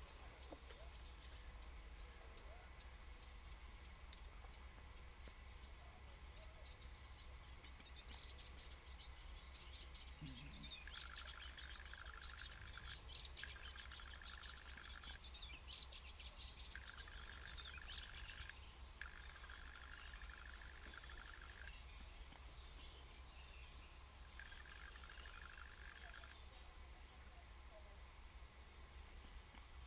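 Faint outdoor ambience: a cricket chirping steadily at an even rhythm, with five bouts of a lower, rapid buzzing trill through the middle stretch and a few faint high bird twitters.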